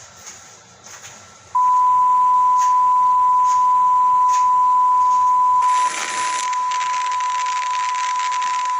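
A TV station's sign-off test tone: a loud, steady single-pitch beep starts about a second and a half in and holds unbroken, with static hiss coming in under it about halfway through. Before the tone there is only faint hiss with regular clicks about once a second.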